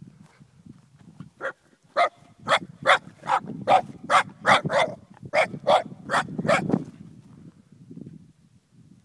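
Young Shiba Inu barking: a run of about a dozen sharp barks, roughly two a second, that stops about seven seconds in.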